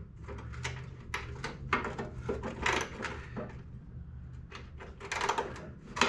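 Hand wrench working a seized, rusted bolt back and forth on a small engine: irregular metal clicks and short scrapes. A steady low hum runs underneath.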